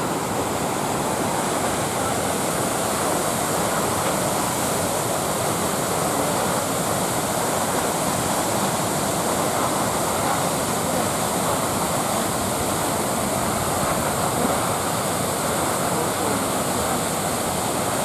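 Steady rushing noise of the Düden waterfall falling about 40 m off a sea cliff into the sea, with white water churning where it lands.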